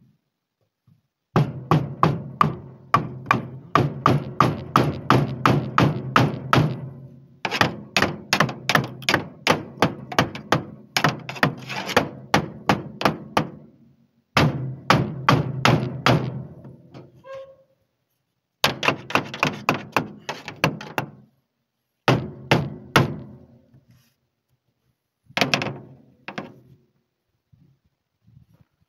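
Claw hammer striking into an old timber frame: quick repeated blows, about three or four a second, in half a dozen runs with short pauses between them.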